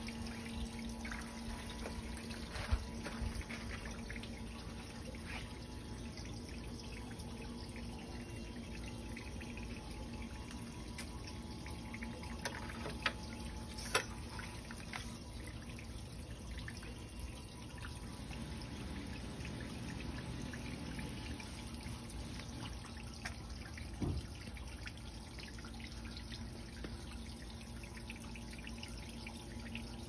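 Water trickling and babbling over the stones of a small garden stream. A faint steady low hum runs underneath, and a few brief knocks come about 3, 13, 14 and 24 seconds in.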